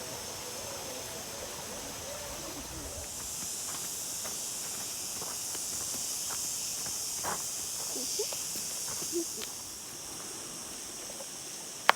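Outdoor ambience in a river valley: a steady high-pitched hiss that swells for a few seconds in the middle, with a few faint short sounds and a sharp click near the end.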